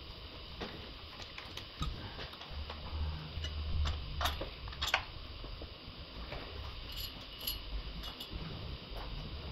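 Scattered small clicks and metallic clinks of hands working on parts of a car engine, with a few sharper clicks about halfway through and a couple more near the end.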